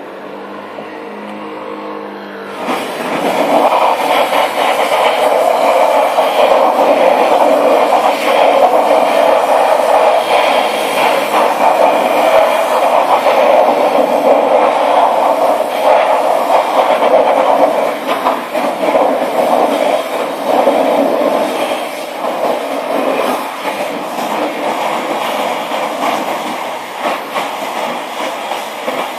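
High-pressure car-wash lance spraying water onto a car's body and wheels to rinse off foam: a loud, steady hiss of the jet that starts about two and a half seconds in and turns a little quieter near the end.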